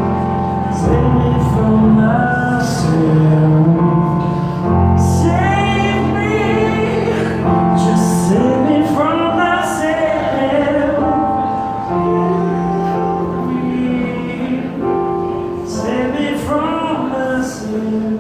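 Live acoustic rock performance: held, sustained chords under a singing voice in long phrases that rise and fall, sung in three or four spells.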